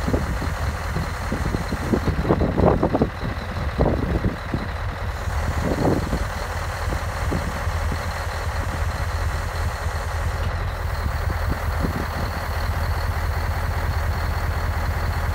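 Scania hooklift truck's diesel engine idling steadily, with a faint steady high whine and a few brief louder noises in the first six seconds.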